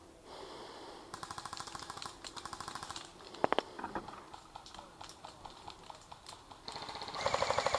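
Airsoft guns firing fast automatic bursts: a quick rattle of about a dozen shots a second, from about a second in to three seconds in and again near the end, with a few single sharp knocks between.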